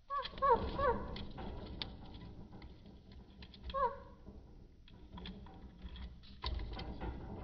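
Budgerigars moving about: a quick run of three short chirps about half a second in and another near four seconds, among scattered light clicks, taps and scratching.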